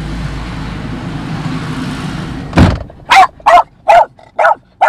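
A steady low engine-like rumble, broken about two and a half seconds in by a sudden loud knock; then a dog barks in short sharp barks, about two a second.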